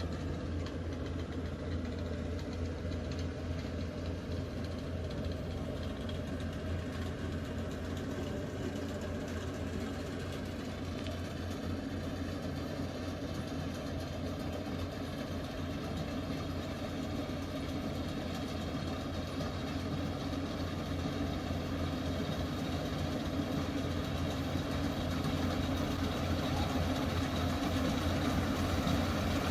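Engine of a rice-harvesting machine running steadily, with a constant low hum. It grows slightly louder near the end.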